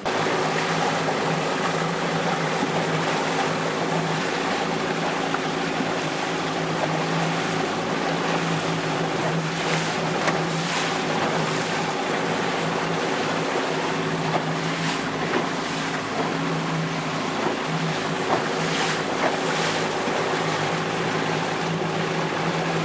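Outboard motor driving an inflatable dinghy at a steady speed: an even hum over a continuous rush of wind and water. A few brief louder rushes come and go.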